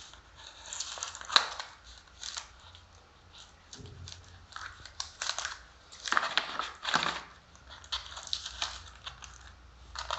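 Takeaway food packaging being handled and opened: irregular crinkling and rustling with sharp crackles, busiest about six to seven seconds in.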